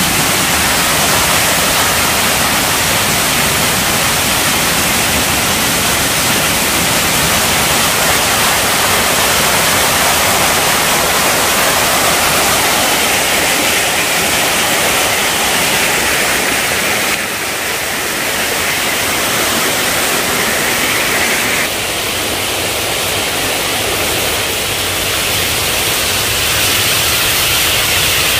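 Steady rush of a small forest stream cascading over rocks, its level dipping a little partway through.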